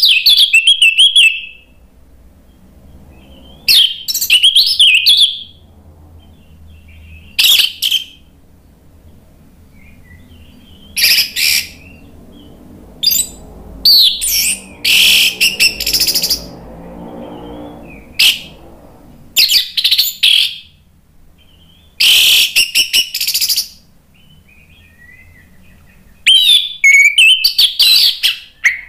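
Orange-headed thrush singing loud, high-pitched, varied phrases in about ten bursts of one to two seconds, with short pauses between them.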